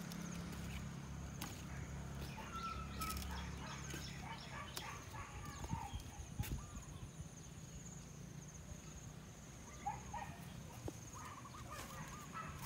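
Garden ambience: birds calling on and off in short chirps, with a wavering trill near the end, over a steady high insect drone. A low hum fades out after the first few seconds, and there are a few sharp clicks.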